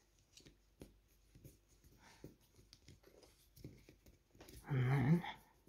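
Faint clicks and scratchy rubbing as a rubber O-ring is pressed by hand into the seal groove of a cast hydraulic gear pump body. About five seconds in comes a short, louder pitched vocal sound.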